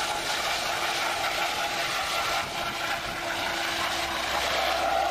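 RAH-66 Comanche helicopter flying low past, a steady rushing rotor and turbine noise with a few steady tones in it.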